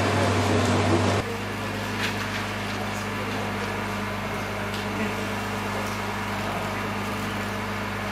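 Nissan GT-R's twin-turbo V6 idling with a steady low hum, with a few faint clicks. For about the first second, crowd voices are heard over it, then the sound drops abruptly to the even idle.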